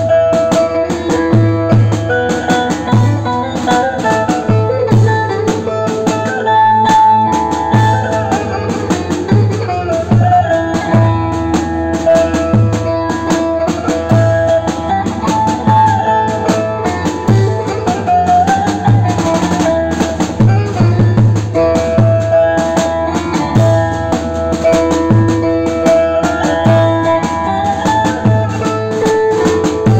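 Instrumental Turkish folk tune played on an amplified bağlama (saz), a plucked melody moving over a steady drum beat with a regular kick.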